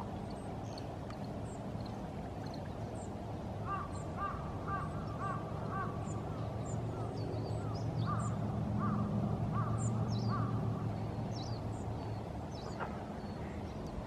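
Northern pintails calling: a run of short, repeated calls, about two or three a second, from about four seconds in until about eleven seconds in. A low steady rumble lies underneath and swells around the middle, with thin high chirps scattered throughout.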